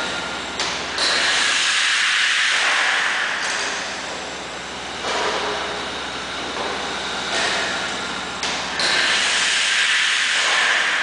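Worthington Simpson waterworks pumping engine running on compressed air instead of steam. Repeated loud hissing rushes of exhaust air, each lasting a second or two, come in time with the engine's strokes over a steady machine hum.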